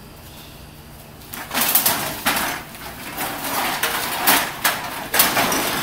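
Empty drink cans and bottles clattering as they are tossed by hand into plastic sorting bins. It starts about a second and a half in and goes on as a rapid, uneven run of sharp clanks and rattles.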